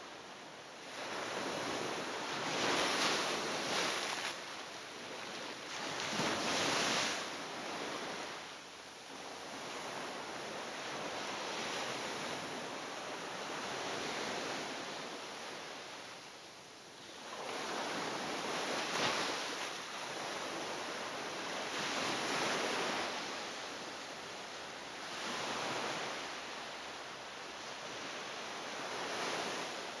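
Ocean surf breaking on a sandy beach: a steady wash of noise that swells and falls every few seconds as each wave breaks and runs up the shore.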